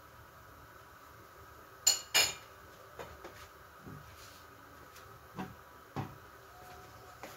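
Metal pots and kitchenware clanking: two loud ringing clanks close together about two seconds in, followed by a few lighter knocks and clinks.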